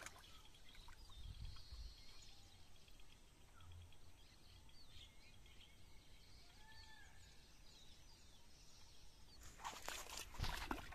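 Near silence in the open air, with a few faint bird chirps. Near the end comes a short run of clicks and rustles.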